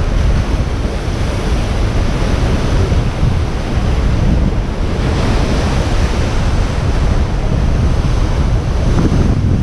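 Strong wind buffeting the microphone in a steady low rumble, over the wash of surf.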